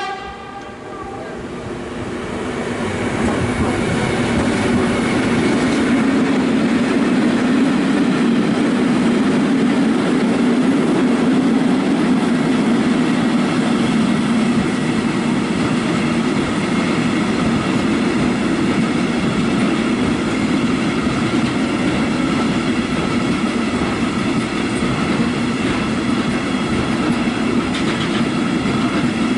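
Freight train hauled by an E.191 electric locomotive rolling through with a long rake of flat wagons. The rumble builds over the first few seconds as it arrives, then holds as a loud, steady rumble with wheels clattering over the rail joints.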